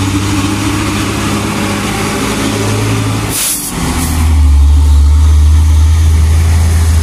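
Hino TI tandem-axle dump truck's diesel engine pulling uphill past close by with a steady low note. About three and a half seconds in comes a short hiss of air and a brief break in the engine sound, after which the engine returns at a lower, louder note as the truck goes by.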